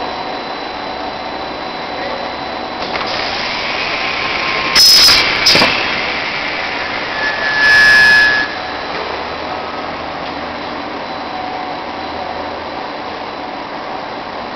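Steady running noise of a C-PVC pipe extrusion line's cutting unit, swelling about three seconds in as the saw goes through the pipe. Short loud hissing bursts come twice about five seconds in and once more around eight seconds, from the cutter's pneumatic cylinders working.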